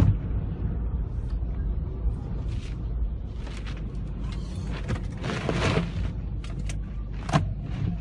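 Sandstorm wind buffeting a car, heard from inside it: a steady low rumble with gusts of rushing hiss every second or so, the strongest about five and a half seconds in.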